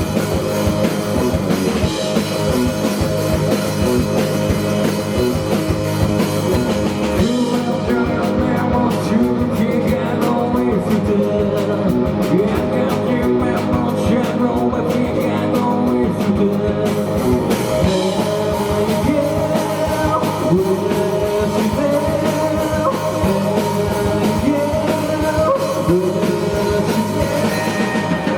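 Live rock band playing: electric guitar, bass and drums, with a voice singing. The top end thins out for about nine seconds from roughly eight seconds in, then the full band sound returns.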